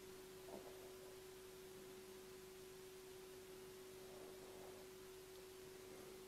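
Near silence: room tone with a faint steady hum at one pitch, and a faint tap about half a second in.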